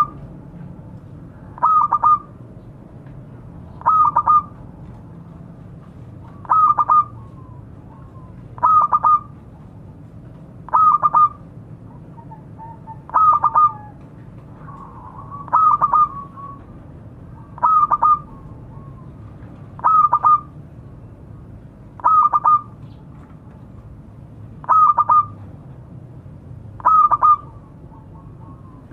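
Zebra dove (perkutut) cooing: a short phrase of quick coos, repeated about every two seconds, twelve times in all. It is the bird's call to a companion.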